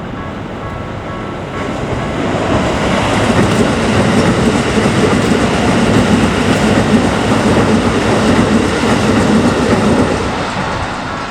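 Keikyu electric train passing over a level crossing, wheels clattering on the rails, building up about two seconds in, loudest through the middle and fading near the end. A level-crossing warning bell rings in a repeating pattern at the start and is then drowned out by the train.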